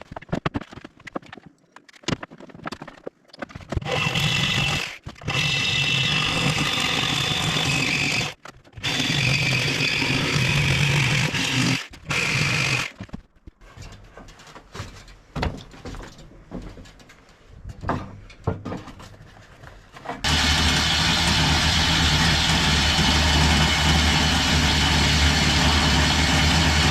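Electric power tool on the steel mower frame, running in three runs of a few seconds each with a steady high whine. Scattered clicks and knocks follow, then a longer steady run from about twenty seconds in.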